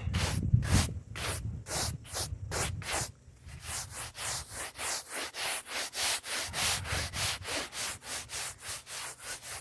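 Stiff bristle brush scrubbing along cracks in an asphalt driveway in quick, regular back-and-forth strokes, about three a second, sweeping out dirt, dry grass and sand.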